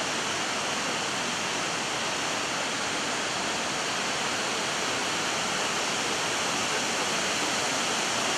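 Steady rush of falling water from the Skradinski buk cascades on the Krka River.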